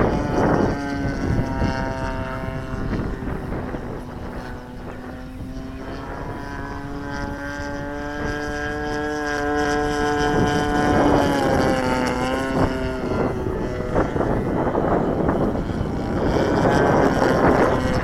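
Radio-controlled model airplane's engine in flight: a steady droning note that drifts slightly up and down in pitch as the plane flies around, fading after about thirteen seconds. Wind buffets the microphone at the start and again near the end.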